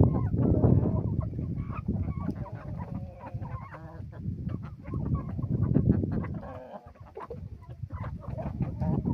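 A flock of hens and roosters clucking while feeding, with many quick sharp clicks among the short calls.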